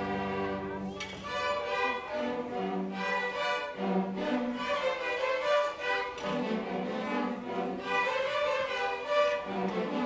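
A youth string orchestra of violins and cellos playing a classical piece, a quick-moving melody over held lower notes.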